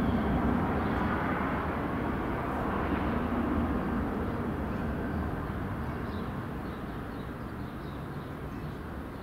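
Jet noise of an Ilyushin Il-76MD's four D-30KP turbofan engines on landing approach: a steady low rumble that slowly fades as the aircraft moves away.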